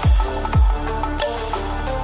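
Electronic background music with sustained synth notes and deep kick drums that drop sharply in pitch.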